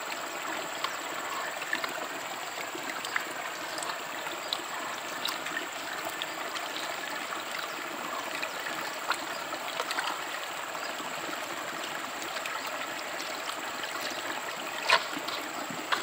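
Shallow river water flowing steadily over rocks, with water trickling and dripping from a gold pan and hand into a plastic bucket, and small splashes throughout. A brief, louder splash or knock comes near the end.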